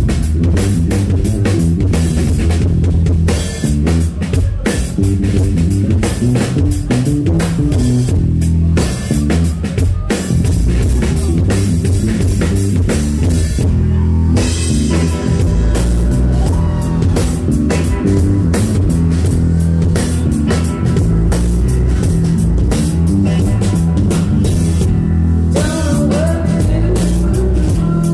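Live rock band playing loud and without a break: drum kit, electric bass and electric guitar.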